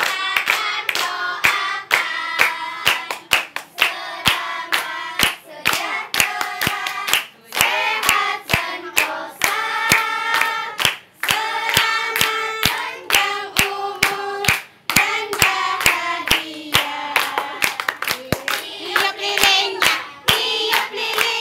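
A group of voices singing a birthday song to hands clapping steadily on the beat, about two to three claps a second.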